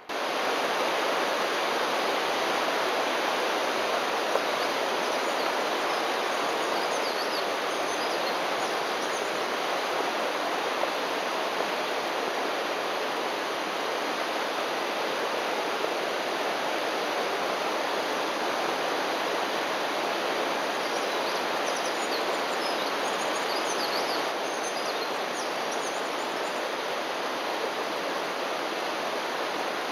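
Mountain waterfall rushing: a steady, dense roar of falling water that starts suddenly at a cut.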